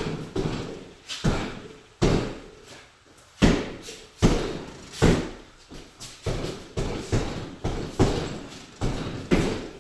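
Gloved punches landing on a Title 3-in-1 wall-mounted heavy bag: a string of sharp thuds, about one every half second, some coming in quick pairs.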